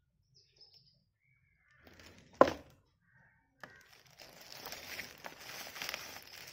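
A single sharp knock about two and a half seconds in, then thin plastic wrapping crinkling steadily as it is pulled off a boxed mirror monitor.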